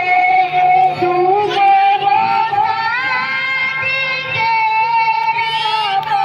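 A boy chanting a melodic recitation into a microphone, holding long notes that waver and turn in ornaments, with short breaks for breath.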